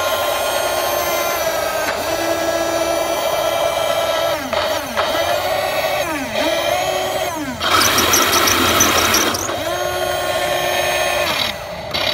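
Heng Long King Tiger RC tank's electric drive motors and gearboxes whining close up, the pitch sliding down and back up again and again as it slows, turns and speeds up. A louder, harsher stretch comes about eight seconds in.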